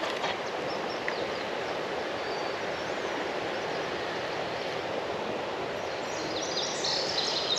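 Steady rush of flowing creek water, with faint high bird chirps here and there, a few more near the end.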